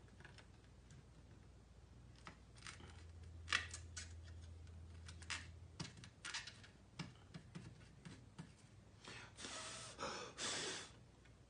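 Faint scattered clicks and taps of wires and a soldering iron being worked against Lionel Fastrack rail as feeder wires are soldered on, with two short hisses near the end.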